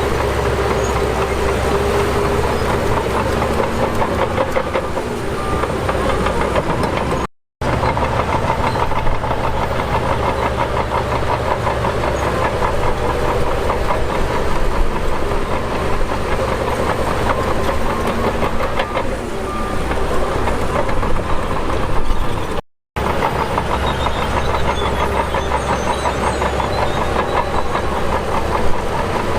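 Diesel engine of heavy earthmoving equipment running steadily. The sound cuts out briefly twice.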